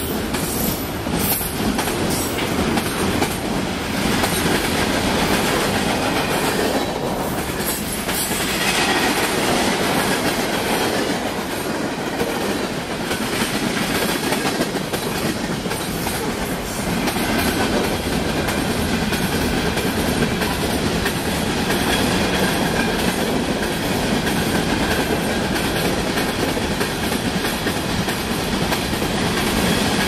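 Freight train cars, autoracks and covered hoppers, rolling past: a steady rumble of steel wheels on rail with rhythmic clacking over the joints.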